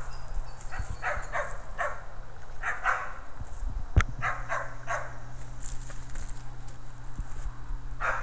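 A dog barking: a run of short barks, often in pairs, that stops about five seconds in. A single sharp knock sounds about four seconds in.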